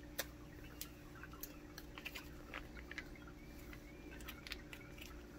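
Faint crinkling and scattered small clicks of a foil-laminated MRE cream cheese icing packet being worked and torn open by hand.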